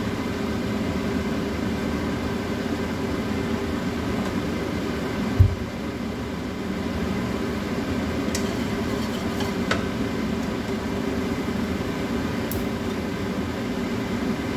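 Steady, even hum of a fan or motor, with one dull thump about five seconds in and a few faint clicks later.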